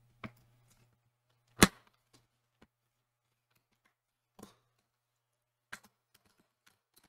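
A handful of short, sharp plastic clicks and knocks, the loudest about a second and a half in, as the bottom screen bezel of an HP 15s-fq1505sa laptop is pressed and pried into its clips along the hinge with a thin pry tool. A faint low hum fades out about two-thirds of the way through.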